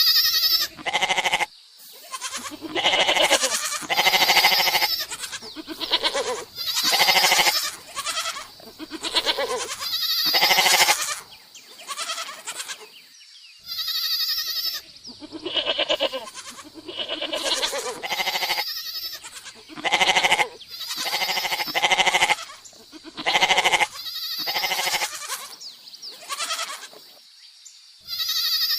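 Domestic goats bleating over and over, one call after another with short pauses between them, each a wavering, pitched bleat lasting about a second.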